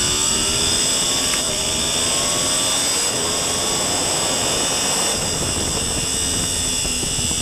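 Sport motorcycle engine at full throttle, heard onboard under heavy wind rush, its pitch rising hard as the bike accelerates. It shifts up from second to third about a second and a half in, then climbs again.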